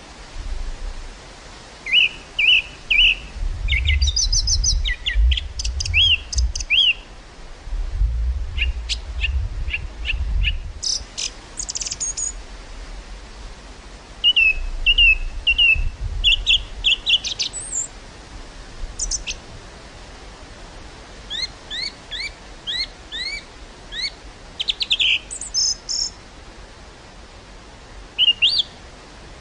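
Small birds chirping and calling in short repeated phrases and quick rising notes, over a steady hiss of breeze through a field. In the first half, wind gusts rumble low on the microphone.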